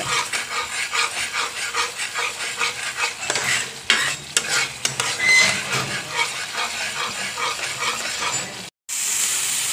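Spatula stirring and scraping a tomato-purée and ginger-garlic masala as it sizzles in a kadai, frying until its raw smell is gone. Near the end the sound breaks off for an instant, then resumes as a steadier sizzle.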